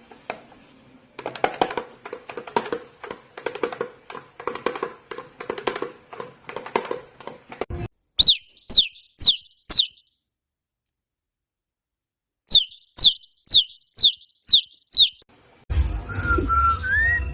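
A small bird giving short, high, falling chirps: four in quick succession, then after a pause a run of seven. Before them come several seconds of fast rhythmic pulsing over a steady hum.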